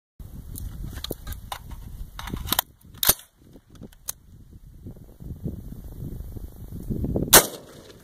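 A single 5.56 mm rifle shot from a 20-inch-barrel AR-15-pattern rifle firing an M855A1 round, loud and sharp, near the end. A fainter sharp crack comes about three seconds in.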